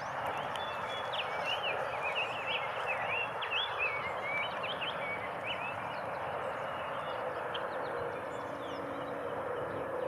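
A small songbird singing a quick jumble of short chirping notes for a few seconds, starting about a second in, over a steady background rush of outdoor noise.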